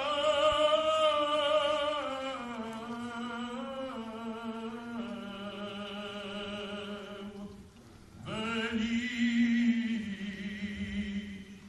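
Orthodox liturgical chanting at the close of the Gospel reading: long held, wavering sung notes that step down in pitch, a short break about eight seconds in, then a second sung phrase.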